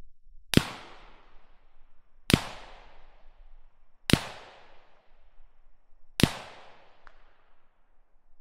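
Four single rifle shots from an AK-pattern rifle fired with no muzzle device, roughly two seconds apart, each sharp crack trailing off in a long rolling echo.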